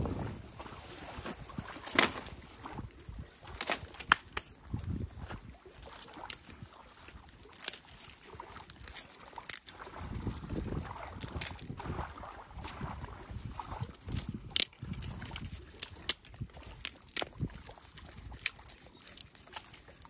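Dry twigs snapping and clicking as they are broken and laid into a stone fire ring, in sharp, irregular cracks over a soft rustle of dry leaves.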